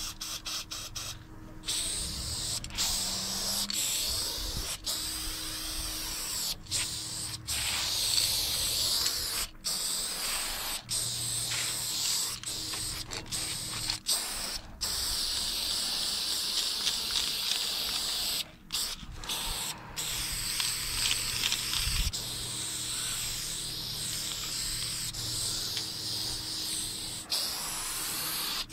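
Aerosol spray paint can hissing as it lays down a line, in long strokes broken by many brief stops where the nozzle is released.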